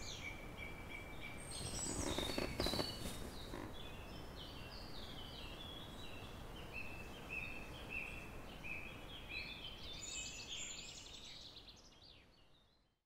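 Faint outdoor ambience of small birds chirping in short, repeated phrases over a steady background hiss, with a brief louder noisy swell about two seconds in. It fades out near the end.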